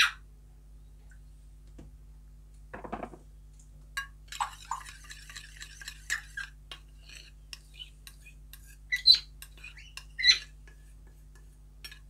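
Steel spoon stirring and scraping thick hand-feeding formula in a stainless steel bowl, with scattered clinks of spoon against the bowl; the two loudest clinks come about nine and ten seconds in.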